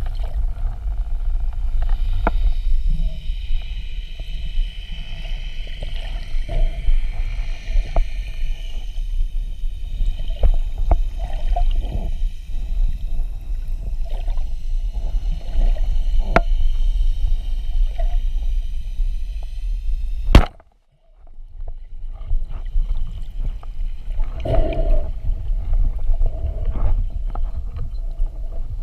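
Underwater sound from a rubber-band speargun: a steady low water rumble with scattered clicks and crackles. About two-thirds of the way through there is one sharp, loud crack as the gun fires its spear, followed by a second of near silence.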